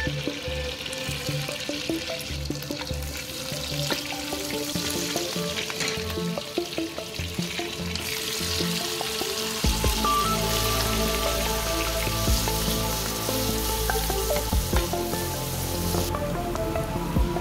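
Butter sizzling and frying in a pan as green chillies and then chopped onions are tipped in and stirred. The sizzle gets louder about halfway through, once the onions go in.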